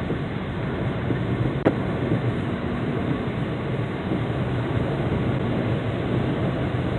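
Heavy rain falling steadily, with a single sharp tap a little under two seconds in.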